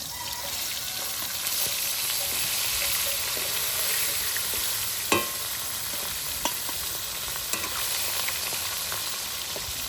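Koi (climbing perch) frying in hot mustard oil in a kadai: a steady sizzle, broken by a few sharp knocks, the loudest about five seconds in.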